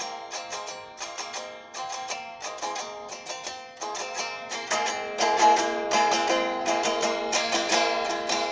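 Guitar being played: a quick run of plucked notes, several a second, getting louder about halfway through.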